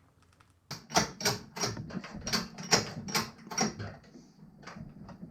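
A press being worked in short strokes, about three a second with a creak or squeak on each, pushing an output-shaft bearing into the moped's aluminium engine case without heat. The strokes fade near the end.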